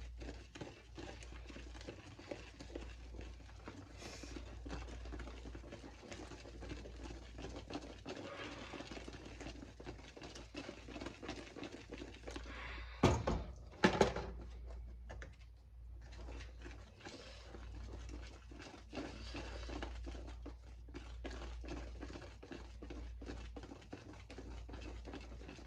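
Whisk stirring cake batter in a mixing bowl: a steady run of quick scraping clicks, with two louder knocks about halfway through.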